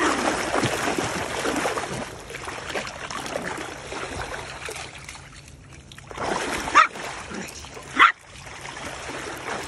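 Shallow stream water splashing for the first few seconds, then a small dog barks twice, two short sharp barks about a second apart near the end.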